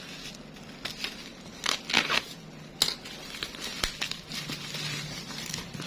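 Bubble wrap and plastic parcel packaging being handled and pulled open by hand: irregular rustling and crinkling with a few sharp crackles, the loudest about two seconds in.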